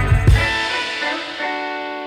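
Background music with guitar: bass and drums stop about half a second in, leaving held guitar notes ringing.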